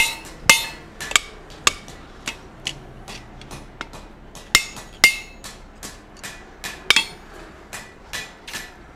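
Hand hammer striking a steel punch held in tongs over the anvil, about two ringing metal-on-metal blows a second, heavier near the start and again past the middle, lighter towards the end. The blows are knocking a stuck slug out of the hole just punched through the steel bar.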